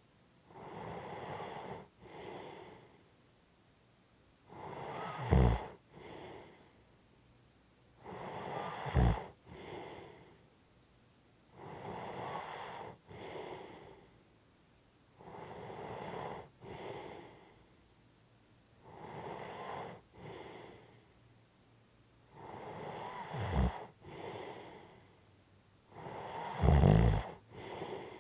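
A sleeping person snoring and breathing heavily, about one breath every three and a half seconds: each long noisy breath is followed by a shorter one. On some breaths a low snore rumbles through, loudest near the end.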